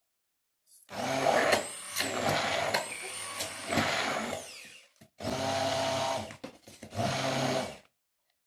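Electric blender pureeing boiled carrots with honey, run in three pulses: a long one of about four seconds, then two shorter ones. The motor's high whine wavers in pitch as the load changes.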